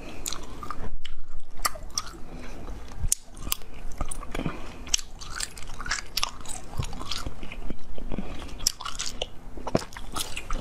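Close-miked bites into a firm jelly cube and chewing, with many sharp little crackles and crunches and wet mouth sounds, pausing briefly about a second in.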